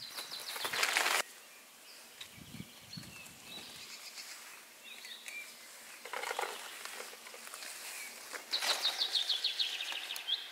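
Wild songbirds singing, with scattered chirps and, near the end, one fast trill of rapid notes falling in pitch. Soft rustling of potting soil and plant pots being handled comes at the start and again partway through.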